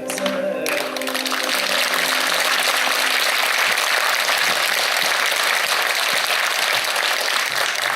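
Audience applauding, steady and dense, while the last held music tones fade out over the first few seconds.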